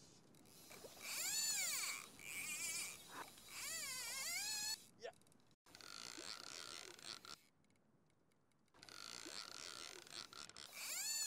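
Fly reel's click drag buzzing as a hooked fish pulls line off the spool, in several runs whose pitch rises and falls with the fish's speed, one of them wavering rapidly, with short pauses between.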